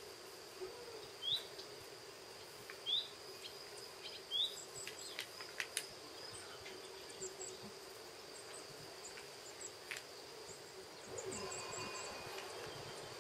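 A bird chirping: three short rising chirps about a second and a half apart, with a few light clicks after them, over a steady faint high hum.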